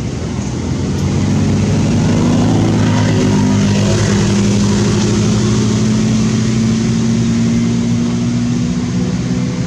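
An engine running, building up over the first two seconds, then holding a steady, even hum.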